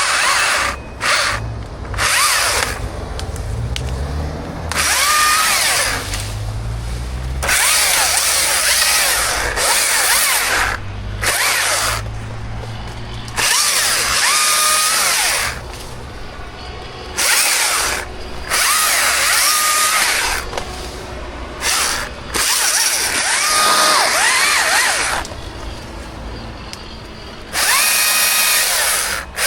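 Two-stroke chainsaw revved in repeated full-throttle bursts of one to two seconds, dropping back toward idle in between.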